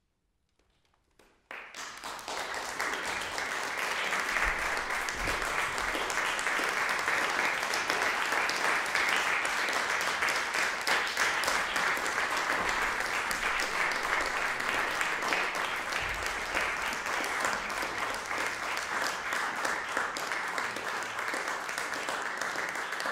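A moment of near silence, then audience applause breaks out about a second and a half in and continues steadily as dense clapping.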